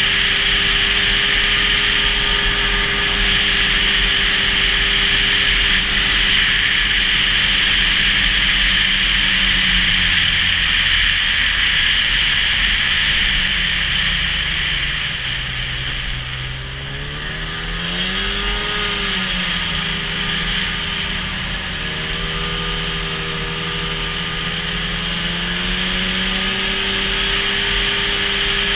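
Snowmobile engine running at speed. About halfway through, the engine note drops as the sled slows, swings up and down briefly, then settles and climbs again to a steady run near the end.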